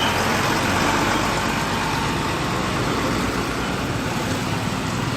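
Steady motor vehicle engine and road traffic noise.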